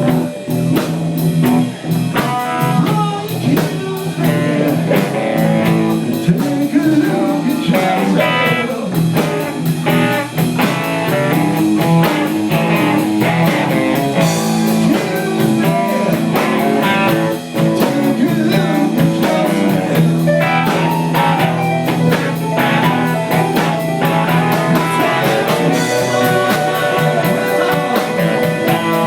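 Live blues band playing: guitar over drums with a steady cymbal beat.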